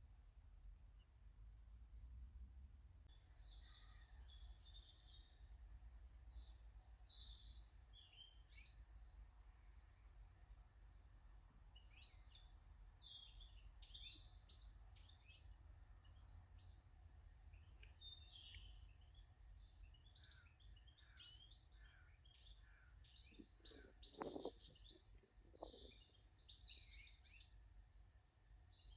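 Faint chirps and calls of small garden birds, many short scattered notes, over a steady low background rumble. A few seconds before the end comes a brief louder, lower-pitched sound, the loudest moment.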